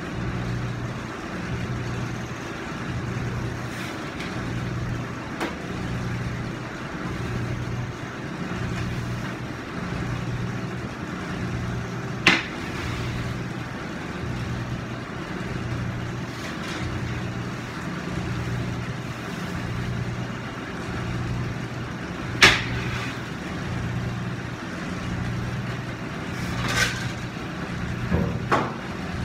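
Commercial bagel oven and kitchen machinery running with a low hum that swells and fades about once a second. Two sharp wooden knocks come about 12 and 22 seconds in, and there is some clattering near the end as bagel boards are handled at the oven.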